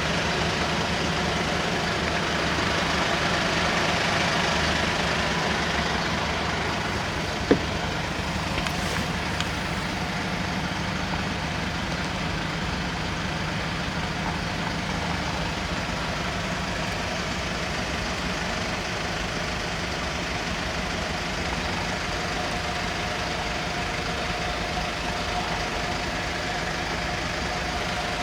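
Mercedes Sprinter 516 van's diesel engine idling steadily, with one sharp click about seven seconds in.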